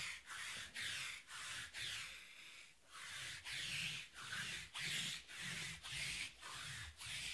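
2020 Panini Prizm baseball cards being thumbed through one by one, each card sliding across the next with a short rubbing swish, about two a second; the swishing stops at the very end.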